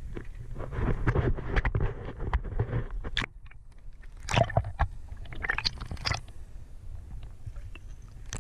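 Water sloshing and gurgling with scattered clicks and knocks. A brief drop-out comes a little past a third of the way in. After it come muffled splashy rushes and a low steady rumble, as heard from an underwater camera on a fishing line being reeled up.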